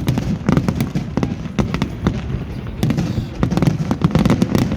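Fireworks display: a rapid, irregular string of sharp bangs and crackles, several a second, over a low rumble, thickening in the last couple of seconds.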